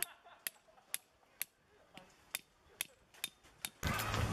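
A hammer tapping a tent stake into the ground: about nine sharp taps, roughly two a second, with a short pause midway. Near the end the sound switches to steady outdoor noise with a low hum.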